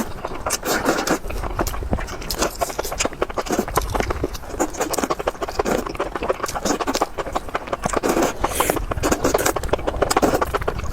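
Eating sounds: food being bitten and chewed, a dense irregular run of crunches and clicks, several a second.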